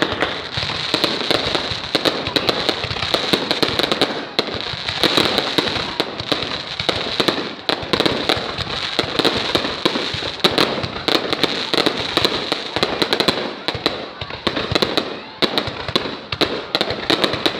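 Fireworks going off in a dense, unbroken run of pops and bangs.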